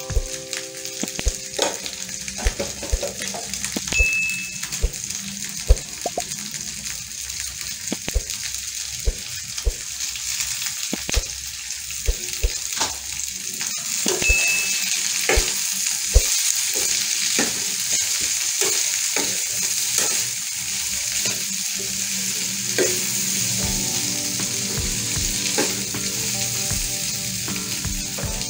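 Chopped okra frying in oil in a steel frying pan, sizzling steadily, with a metal spoon clicking and scraping against the pan as it is stirred. The sizzle gets louder about halfway through.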